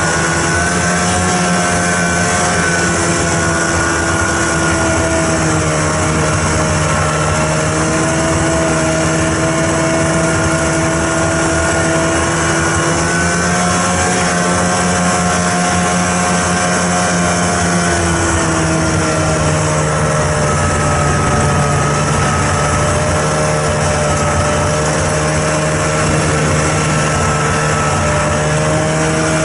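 Snowmobile engine running steadily at travelling speed, its pitch easing up and down a little, over the rush of the machine moving along.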